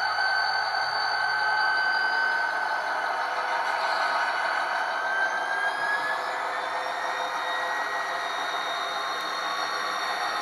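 ESU LokSound sound decoder in an HO-scale EMD SD40-2B model playing turbocharged EMD 16-645 diesel prime mover sound through the model's small speaker: steady running with a turbo whine that dips slightly and then rises near the end.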